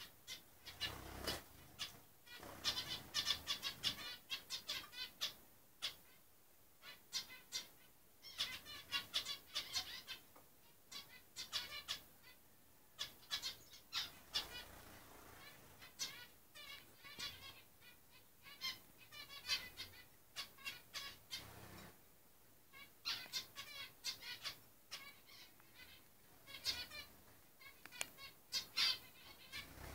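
Many caged ornamental birds calling at once: a busy, continuous chatter of short repeated chirps and squawks, with wing flutters and sharp clicks mixed in.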